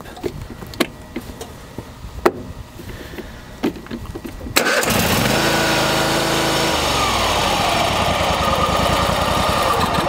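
Kohler lawn tractor engine cranked by its electric starter for about four and a half seconds with the choke held on by hand, then catching and running loudly; the speed settles a little lower a couple of seconds after it catches. It starts only because the choke is held shut, as the choke cable is out of adjustment.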